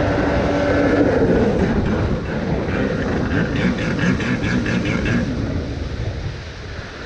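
Kawasaki X2's 650cc two-stroke engine running at speed through a new aftermarket waterbox exhaust, its pitch rising and falling with the throttle. It eases off and grows quieter near the end.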